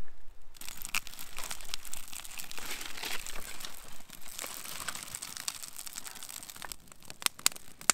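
Freshly lit birch bark and wood shavings catching and burning, a dense crackling and hissing, with a few sharper pops near the end.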